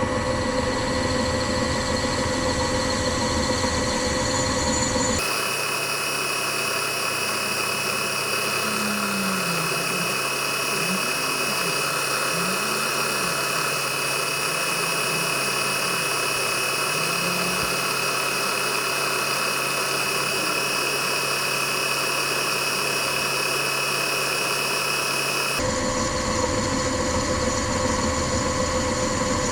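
An electric machine-tool motor running steadily with a constant hum. The sound changes abruptly about five seconds in and again near the end.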